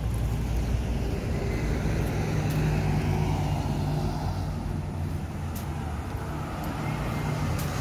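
Road traffic going by, with a double-decker bus passing close by: a steady engine hum that is strongest in the middle and then fades.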